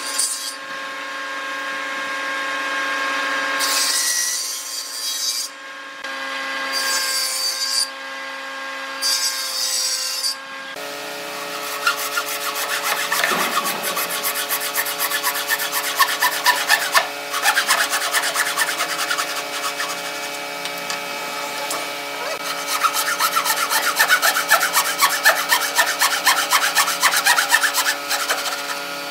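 Table saw running, with a few short cutting passes through a pine block over the first ten seconds. Then a thin handsaw blade rasps back and forth in quick, even strokes through a clamped pine block.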